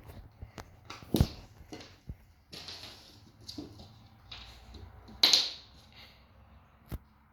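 Golden retriever puppy chewing and crunching an ice cube: irregular crunches and clicks, with two louder crunches about a second in and about five seconds in.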